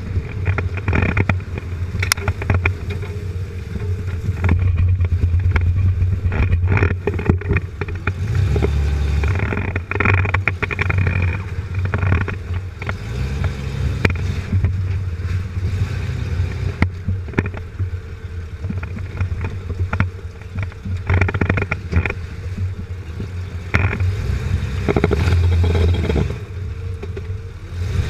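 Jeep Cherokee XJ's engine running low under the chassis, its drone rising and falling with the throttle as it crawls a muddy trail. Frequent knocks, clunks and rattles come from the lifted suspension and tyres working over the ground and through puddles.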